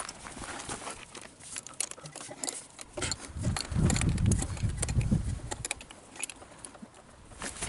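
Hands refitting a motorcycle carburettor and its fittings: scattered small clicks, taps and rattles of metal parts, with a low rumble about three to five seconds in.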